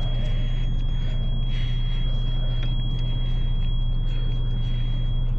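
2012 Jeep Liberty's 3.5-litre V6 running at idle, a steady low hum with a thin constant high whine over it.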